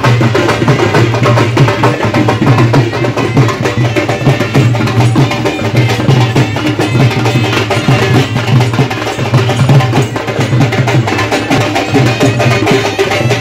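Loud traditional folk music played on drums and percussion, a steady, dense rhythm throughout, accompanying costumed folk dancers.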